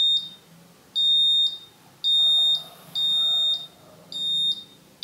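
Buzzer of an Arduino Pro Mini milk-boiling detector beeping a single high tone about once a second, each beep about half a second long. It is the alarm that the boiling milk has risen toward the top of the pot. The beep is a little weak, which the maker puts down to a low battery.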